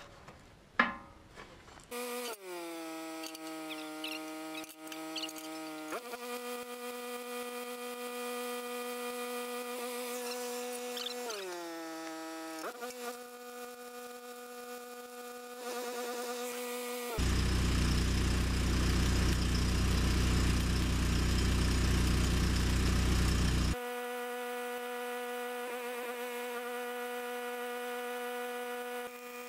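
Stick arc welding on steel: a steady electric buzz from the welding arc. A louder, rougher stretch lasts several seconds past the middle.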